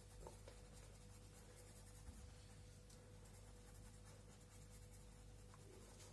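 Faint scratching of a coloured pencil shading small circles on paper.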